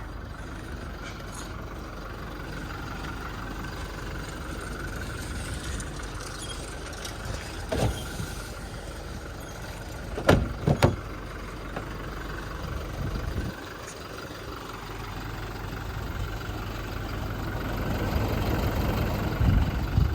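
Toyota Innova Crysta's 2.4-litre four-cylinder turbo-diesel idling steadily, a low even clatter. A few sharp clunks come about halfway through, and the engine grows louder over the last few seconds.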